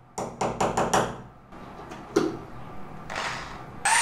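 Claw hammer tapping the point of a screw held against a plaster wall, about five quick light strikes and then one more a second later, marking where to drill. Just before the end a corded Bosch electric drill with a masonry bit starts up with a steady whine.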